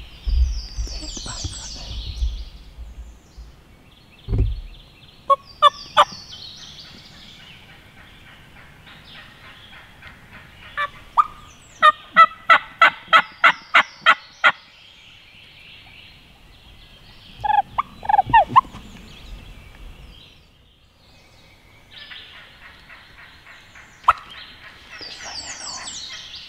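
Wild turkey gobbler gobbling at the start and again near the end. In the middle comes a run of about ten evenly spaced hen yelps, about four a second, followed later by a few more sharp yelp notes.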